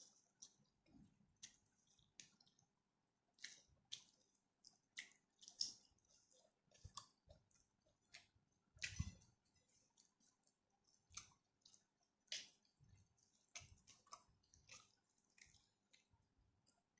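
Faint close-up chewing of rice and spicy stir-fried chicken: irregular wet mouth clicks and smacks, a few louder ones along the way.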